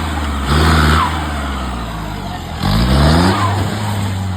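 Off-road jeep engine running, with two blips of the throttle: a short one about half a second in and a stronger rising rev near the three-second mark.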